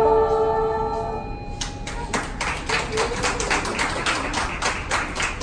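Women's choir holding its final chord, which fades out just over a second in. Scattered applause from a small audience starts and carries on.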